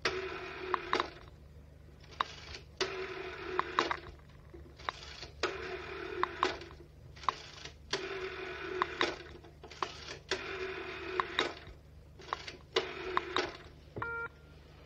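1960s landline telephone's rotary dial being turned and released digit after digit as a number is dialled. Each release gives a whirring return with sharp clicks. A short tone sounds near the end.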